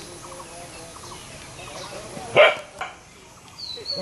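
A dog barking: one loud bark a little over halfway through, then a shorter, softer one right after.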